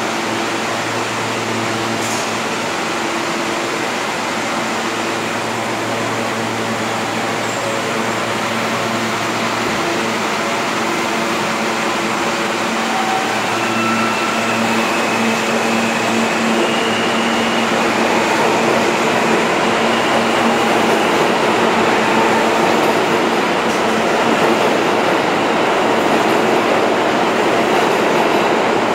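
New York City R160 subway train standing with its air-conditioning humming steadily, then pulling out of the station. About halfway through, a traction-motor whine rises in pitch and the rush of the moving cars grows louder as it gathers speed.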